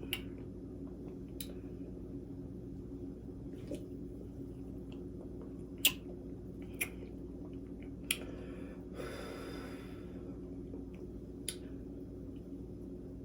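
A person gulping Sprite from a bottle: sharp swallowing and mouth clicks every second or two over a steady low hum, with a short breathy rush about nine seconds in.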